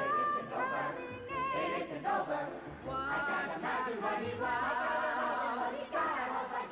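A group of voices singing together, with wavering vibrato on the held notes.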